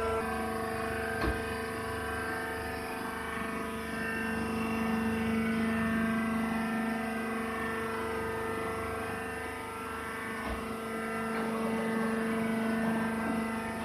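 Wood shavings baling machine running: a steady mechanical drone with several held tones, and a faint knock about a second in and another about ten seconds in.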